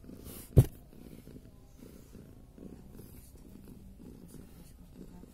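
Adult tabby cat purring steadily while her newborn kittens nurse. A single sharp knock sounds about half a second in.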